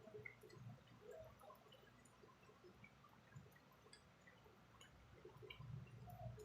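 Faint bubbling and popping of chicken and pork adobo simmering in a pot, small scattered blips over a low hum.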